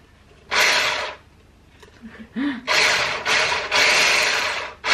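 Hand-held electric whisk (a stick blender with a whisk attachment) whipping milk and cheesecake mix in a saucepan, run in bursts: a short burst about half a second in, then a longer run of about two seconds from near the middle.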